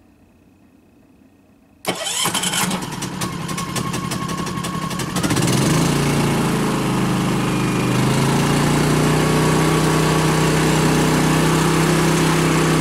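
Champion 3500-watt dual-fuel inverter generator starting cold on propane with the choke set: about two seconds in the engine cranks with rapid clicking for about three seconds, then catches and settles into a steady run.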